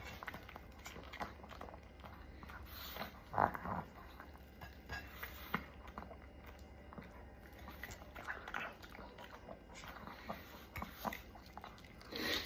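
A dog eating quickly: irregular chewing and biting clicks, with a few louder bites.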